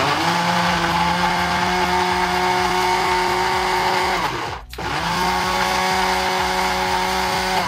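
Small electric food chopper grinding roasted peanuts into a paste, its motor running in a steady whine. It stops for about half a second a little past halfway, then starts up again.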